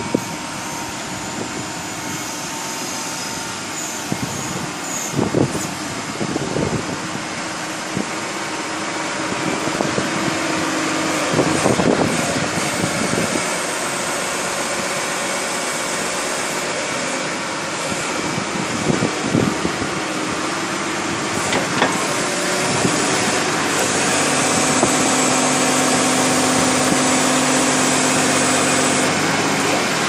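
Backhoe loader's diesel engine idling steadily, with a few knocks and clunks over it and a slightly louder, steadier hum near the end.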